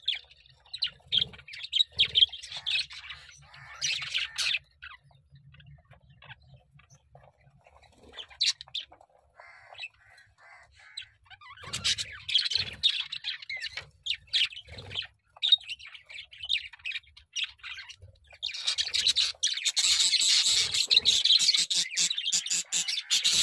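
Small pet birds chirping and squawking in short bursts, then a denser, louder chorus of rapid chirps in the last few seconds.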